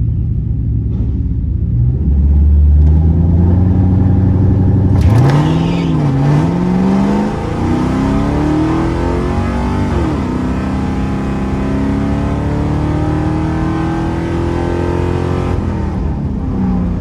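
Drag car's engine held at raised revs on the starting line, then launched at full throttle down an eighth-mile pass: the pitch climbs through the gears, dropping back at each shift, for about ten seconds before the throttle closes near the end.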